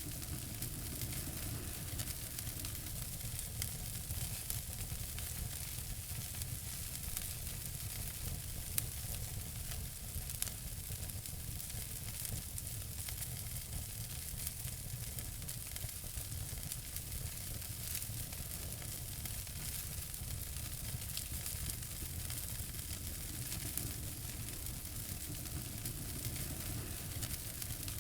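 Wood fire burning in a fireplace, a steady hiss with many small crackles and a couple of sharper pops.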